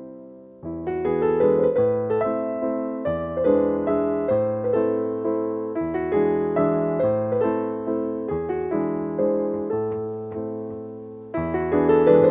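Background piano music, a gentle melody of clearly struck notes with chords, pausing briefly near the start and again just before the end.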